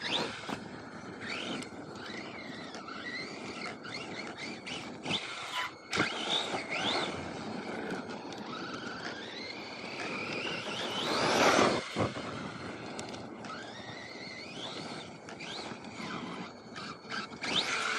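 Electric motor of an RC monster truck whining as the truck is throttled again and again, the pitch rising and falling with each burst, with one long rising whine about eleven seconds in. A few sharp knocks come from the truck bumping or landing on the dirt.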